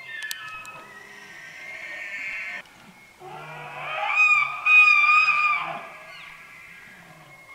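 Bull elk bugling: a call that glides up into a long, high, whistling note, then drops away.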